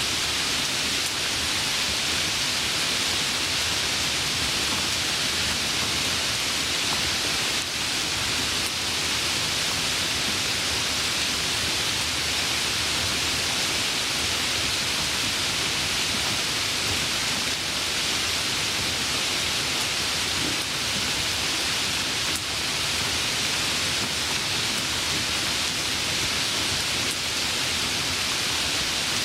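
Steady rain falling, a constant even hiss with no letup or distinct drops standing out.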